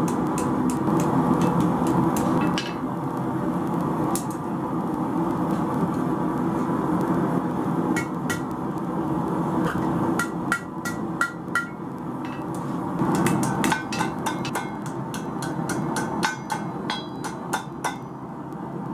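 Ball-peen hammer forging hot steel on an anvil. Each blow rings, at first scattered, then in quick runs of about three a second from about halfway through. A steady roar of the gas forge runs underneath.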